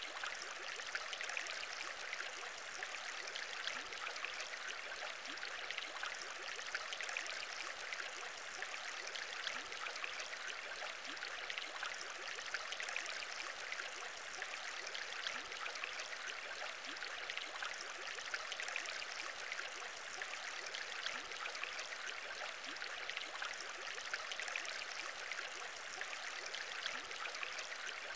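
Aquarium bubbling: a steady stream of small air bubbles rising and popping, many tiny pops over an even watery hiss.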